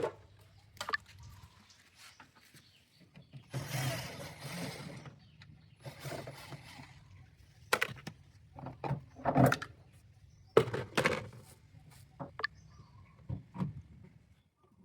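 Irregular knocks and clatter with longer scraping or rustling passes, from parts of a front-load washing machine being handled during disassembly and cleaning, over a low steady hum.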